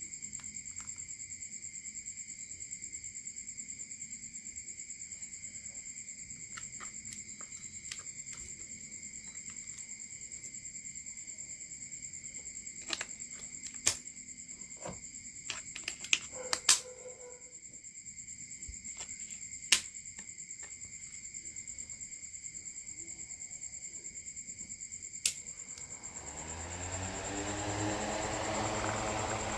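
Sharp clicks and taps from handling small parts, over steady high-pitched background tones. Near the end a small DC motor starts and spins up, its pitch rising as the fan blades gather speed.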